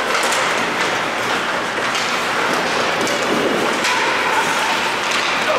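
Ice hockey play in an indoor rink: skates scraping the ice and scattered sharp clacks of sticks and puck over a steady arena hubbub.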